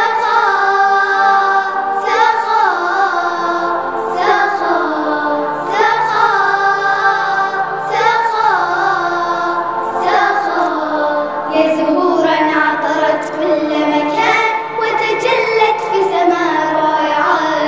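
A choir of young girls singing an Arabic song in unison over a musical backing, with a percussive hit about every two seconds.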